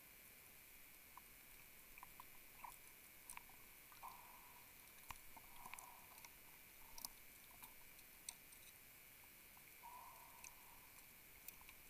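Near silence underwater: faint scattered clicks and a few short soft hisses over a faint steady high whine.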